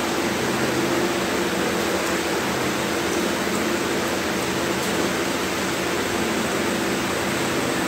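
Steady, even hiss with a faint low hum underneath: room tone with no speech.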